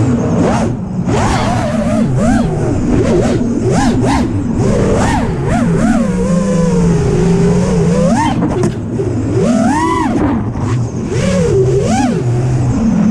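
FPV freestyle quadcopter's brushless motors whining and changing pitch over and over, rising and falling sharply as the throttle is punched and chopped.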